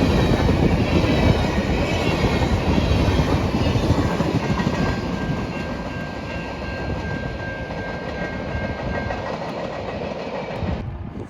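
Freight train cars rolling past, wheels clicking over the rail joints with a steady rumble. A thin steady squeal joins for a few seconds in the middle, and the sound eases off, then drops away abruptly near the end.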